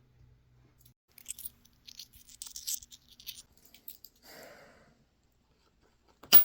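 Scattered light clicks and rustling of small items being handled, with a short soft rushing noise about four seconds in.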